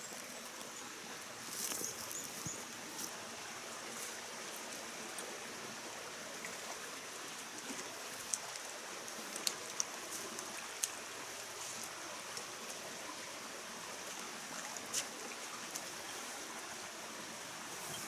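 Small mountain stream flowing steadily over rocks, with a few sharp small clicks scattered through it, about four in all.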